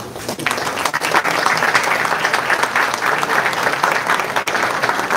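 An audience applauding, the clapping breaking out about half a second in and going on steadily.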